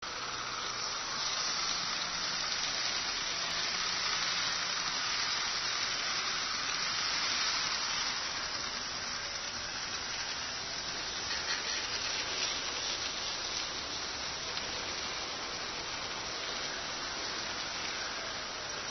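Brass model trains running on the layout's track: a steady hissing rush of the wheels rolling on the rails, with a faint motor hum underneath in the first few seconds.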